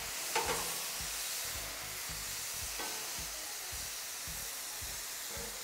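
Shrimp and scallops sizzling on a hot steel flat-top griddle in a steady hiss, with a few light scrapes of a metal spatula on the griddle top as the shrimp are spread out.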